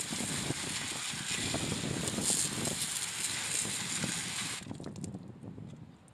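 Garden hose spray nozzle jetting water onto crystals and rocks lying on a wire-mesh screen: a steady hiss and spatter that cuts off suddenly about three-quarters of the way through.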